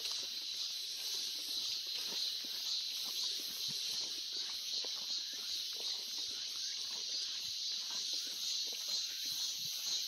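A steady, high-pitched chorus of cicadas from the dense summer woods, with soft footsteps on an asphalt road.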